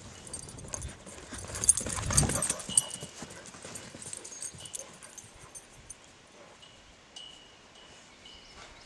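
Great Dane galloping on lawn grass, its paws thudding in quick footfalls, with a louder rush of noise about two seconds in.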